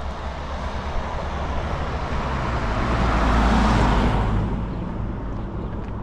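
A car driving past, its noise swelling to a peak about three and a half seconds in and then fading, over a steady low rumble of wind on the microphone.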